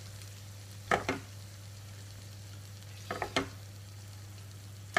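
A metal fork and spatula click and knock as cooked sausages are lifted from the pan and set down on a plastic chopping board: a couple of sharp clicks about a second in, a quick cluster after three seconds, and one more at the end. Underneath runs a steady low hum and the faint sizzle of the hot pan with the heat just switched off.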